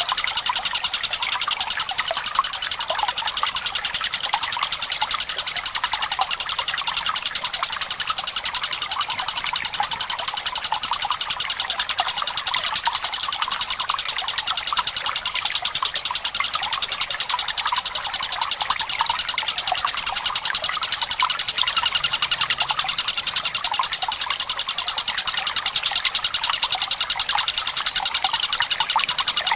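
Tengkek buto, a kingfisher, calling in a long, very fast trill that runs on without a break, over steady trickling water.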